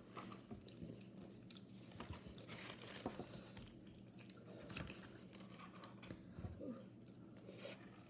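Faint chewing of fries and poutine, with scattered soft clicks and crinkles.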